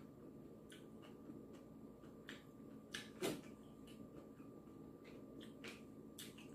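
Quiet eating sounds: a few faint, sharp clicks as chopsticks pick at a sashimi tray while she chews, with one louder click about three seconds in.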